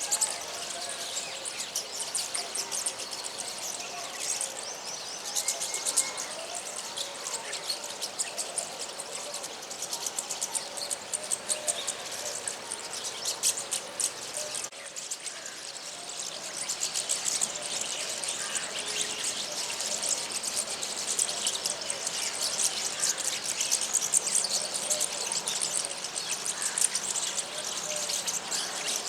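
A flock of small birds chirping and chattering, many short high calls overlapping without pause.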